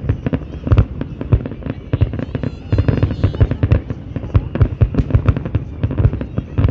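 Fireworks display: a rapid barrage of aerial shell bursts, several loud bangs and booms a second, one on top of the other.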